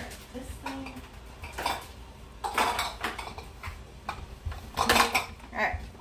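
Glass jars and containers clinking and knocking against each other as they are handled, in several short clattering bursts, the loudest about five seconds in.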